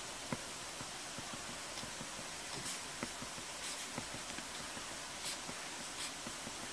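Apple Pencil tip writing on an iPad's glass screen: irregular soft taps as the tip meets the glass, over a steady background hiss.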